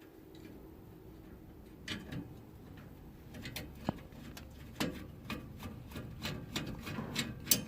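Irregular small metallic clicks and taps of a hand tool and screw as a furnace flame sensor is fitted back and screwed down, over a low steady rumble.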